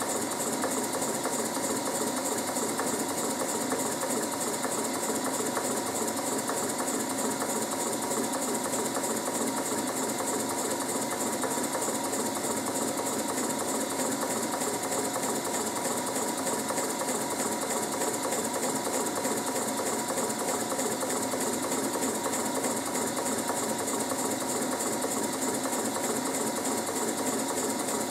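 Märklin 4161/94/11 twin-cylinder toy stationary steam engine running steadily on low-pressure compressed air (about 5–8 PSI), with a rapid, even mechanical clatter of its cylinders and crank.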